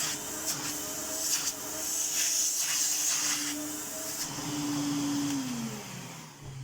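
Electrolux 612 upright vacuum cleaner's 560-watt motor running with the hose off for a suction test, its airflow hiss swelling and fading. Near the end the motor is switched off and its pitch winds down. The suction is good.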